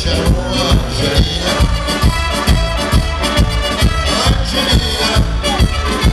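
Live band music through a stage PA: drums keeping a fast, steady beat under trumpets and accordion, with a man singing into a microphone.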